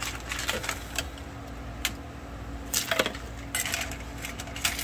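Metal ladle clinking and scraping against a stainless steel pot, with knocks as boiled stone crab claws are scooped out and dropped into a bowl of ice water. The sharp clinks come scattered at first and closer together in the second half, over a steady low hum.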